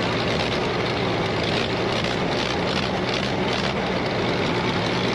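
Gasoline engine of a Ditch Witch R40 trencher running steadily, brought back to life after sitting 12 years.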